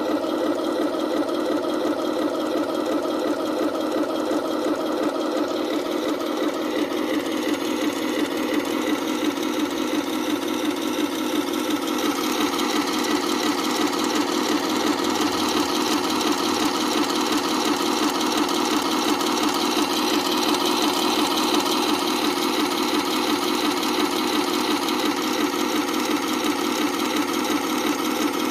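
Simulated tank engine sound from the RC Tiger 131 model's sound unit, running steadily with a fast, even throb; the higher part of the sound grows brighter about twelve seconds in.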